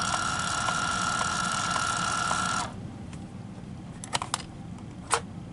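Handheld thermal label maker printing, its motor feeding tape out with a steady whirr and a faint even ticking, stopping abruptly about two and a half seconds in. A few sharp clicks follow near the end.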